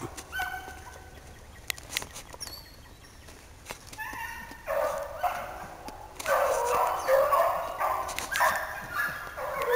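A pack of rabbit hounds baying as they run a rabbit's track. The voices are faint at first, then become louder and fuller, many overlapping, from about five seconds in.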